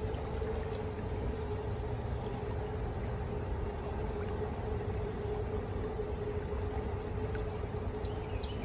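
A small pump motor on a boat hums at one steady pitch while water pours and gurgles, over a constant low rumble.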